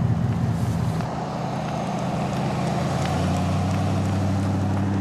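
Pickup truck towing a horse trailer, its engine running steadily as it drives along a road, the engine note growing stronger about three seconds in as it comes closer.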